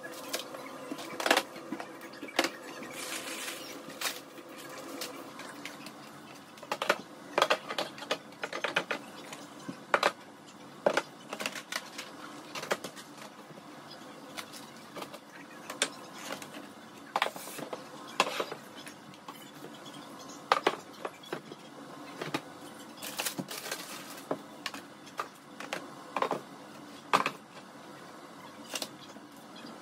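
Irregular knocks, taps and clatter of food packages, jars and plastic containers being handled and set down on pantry cabinet shelves, coming every second or so at uneven intervals.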